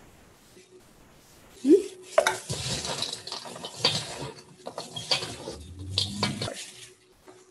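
Chocolate-coated popcorn being tossed and stirred by gloved hands in a large stainless steel mixing bowl: rustling and crunching with light clicks against the bowl. It starts about two seconds in, just after a brief squeak, and stops shortly before the end.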